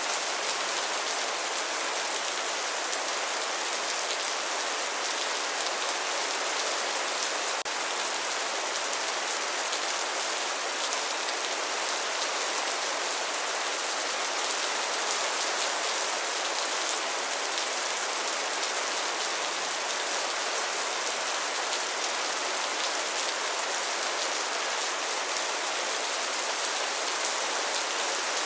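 Steady rain falling and pattering on a surface, an even hiss with fine drop ticks.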